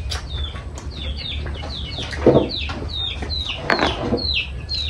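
Chicks peeping without pause: short, high peeps that fall in pitch, about three a second. Two louder, lower calls come in, one about two and a quarter seconds in and one nearer four seconds.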